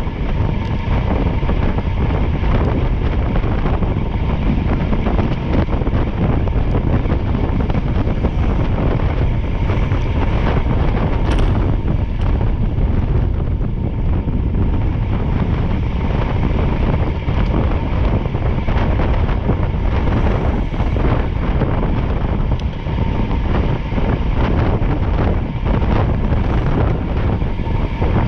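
Loud, steady wind rushing and buffeting the microphone, over a low rumble, as when riding at speed.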